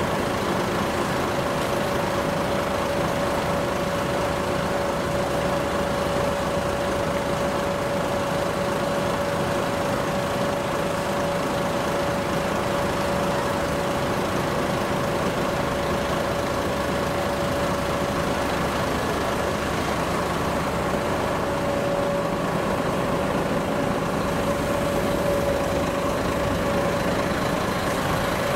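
Heavy truck's diesel engine idling steadily, with a constant high whine running over the low drone.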